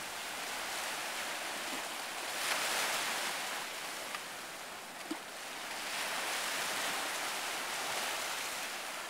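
Ocean surf breaking and washing in over rocks at the shoreline, a steady rush that swells and eases as the waves come in.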